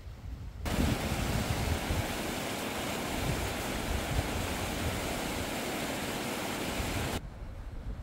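Mountain stream water rushing, a steady hiss that cuts in just under a second in and stops abruptly about a second before the end. A low wind rumble on the microphone runs underneath.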